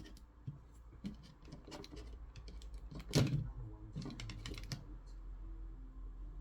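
Irregular small clicks and taps from the speaker's parts and its replacement drivers being handled on a work surface, with one louder knock about three seconds in.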